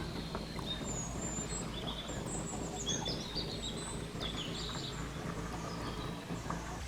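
Birds chirping and calling in many quick, high sweeping notes over a steady low background rumble.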